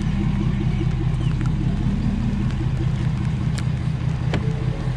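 Ford F-250 pickup's engine idling steadily, with a few sharp clicks near the end.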